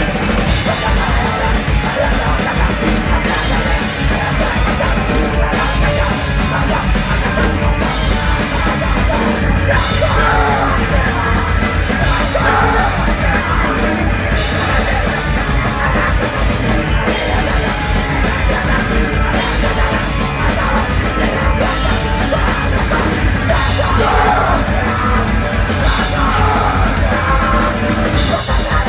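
Hardcore punk band playing live at full volume: pounding drum kit and distorted guitar and bass under a shouted vocal in Spanish.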